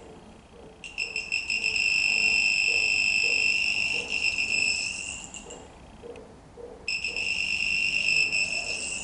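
High-pitched electronic buzzer of a non-contact voltage tester, sounding steadily for about four and a half seconds, stopping for about a second, then sounding again near the end: the tester's alert that it is picking up live voltage.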